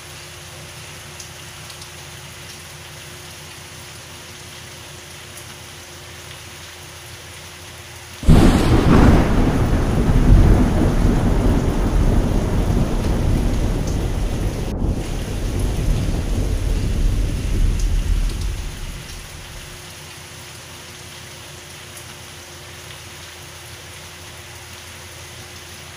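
Steady rain falling, broken about eight seconds in by a sudden loud crack of thunder that rolls and rumbles for about ten seconds before fading back under the rain.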